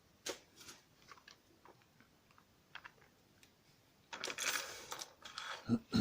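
Small sharp metallic clicks from a euro cylinder lock and lockpicking tools being handled. About four seconds in they turn into a brief scraping rattle, followed by a shorter one and a knock near the end.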